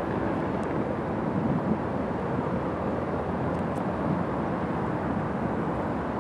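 Steady distant aircraft engine rumble, even and unbroken.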